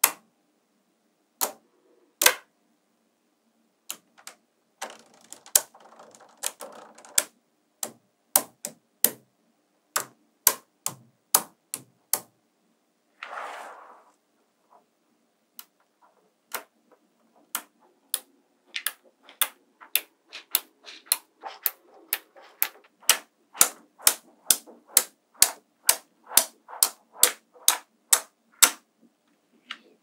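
Small magnetic balls snapping together in sharp clicks, singly and in quick runs, as strips and sheets of balls are pressed into place; the clicks come about twice a second in the second half. A brief scrape sounds near the middle.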